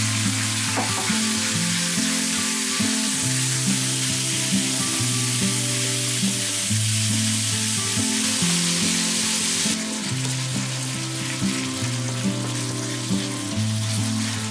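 Raw coarse minced pork sizzling as it sears in oil in a non-stick frying pan, stirred and broken up with a wooden spoon. The sizzle thins a little about ten seconds in.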